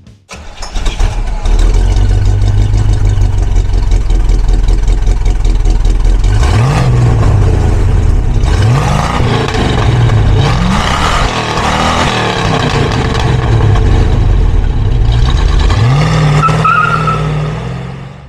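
1976 Pontiac Firebird Trans Am's V8 through its tailpipes, starting up about a second in and settling into a steady idle. Several quick revs rise and fall between about six and eleven seconds in, with another rev near the end before the sound fades out.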